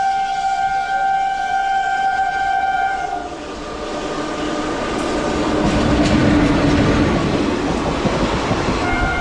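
A WAP-4 electric locomotive's horn holds one long steady note and cuts off about three seconds in. It is followed by the growing rumble and clatter of the train of ICF coaches rolling past. The horn sounds again near the end.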